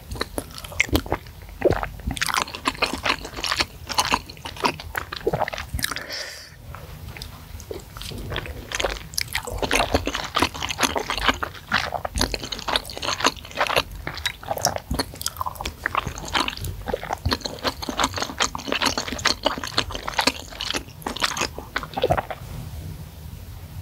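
Close-miked eating of spicy seblak with noodles and meatballs: wet chewing and smacking with many small, irregular mouth clicks. There is a brief lull about six seconds in.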